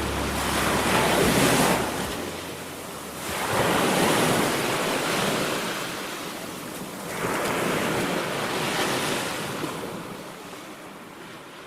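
Sea waves surging and washing, three swells a few seconds apart, fading out near the end.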